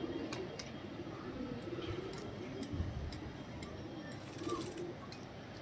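Domestic pigeons cooing, low repeated coos every second or so, with several light clicks among them.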